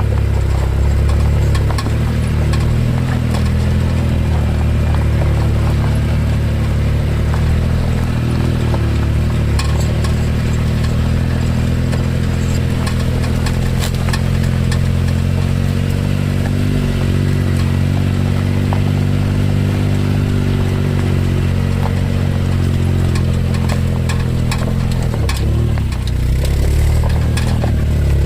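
Suzuki Jimny running at a steady engine speed, a low drone with scattered light clicks and rattles over it. The drone dips briefly about 25 seconds in, then picks up again.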